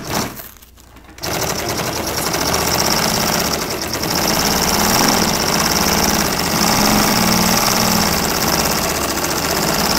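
Industrial sewing machine starts about a second in and runs steadily, stitching Velcro onto canvas with a rapid, even stitch rhythm.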